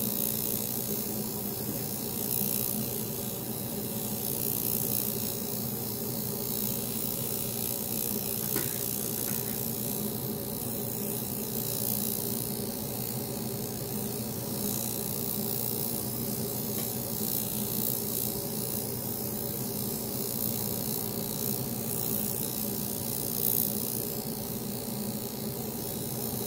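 High-frequency facial machine running: its glowing glass electrode wand is worked over gauze on the face, giving a steady electrical buzz with a hiss. This step comes after extractions and is meant to help close the pores.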